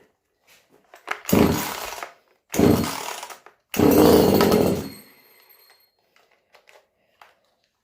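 Chinese 25.4cc two-stroke top-handle mini chainsaw being pull-started on its first start-up after priming. There are three pulls on the recoil starter about a second apart, and on the third the engine fires and runs for about a second before dying out.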